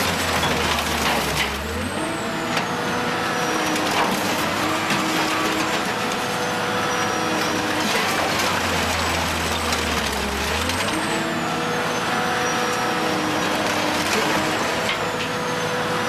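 A scrap-metal shredder tearing up car bodies. Sheet metal is crunching and grinding continuously, with screeching and squealing metal and scattered sharp cracks, over the steady running of the machine.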